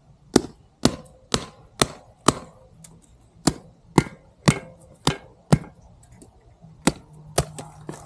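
SwissTech hatchet chopping into a green stick on the ground. The chops are sharp and come about two a second, in three runs of five, five and two.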